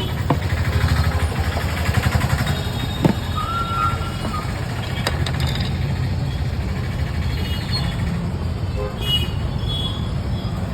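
Steady rumble of passing road traffic, with a brief horn toot about three seconds in and a few sharp clicks or knocks.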